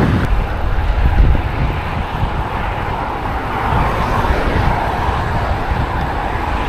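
Wind rushing over an action camera's microphone on a moving road bike, with a steady low rumble and hiss, mixed with the noise of road traffic.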